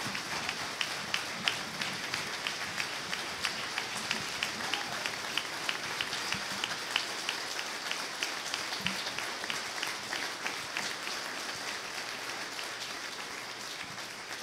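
Audience applauding, with one set of sharper claps keeping an even pace of about three a second. The applause slowly dies down toward the end.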